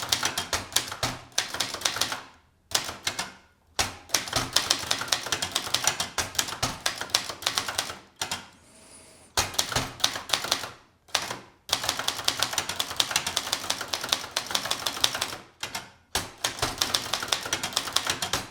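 Brother Deluxe 220 typewriter being typed on: keys strike in quick runs of sharp clacks, several a second, with short pauses between the runs.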